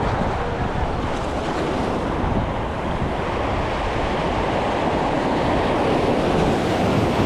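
Steady wash of waves and surf against a jetty, with wind buffeting the microphone.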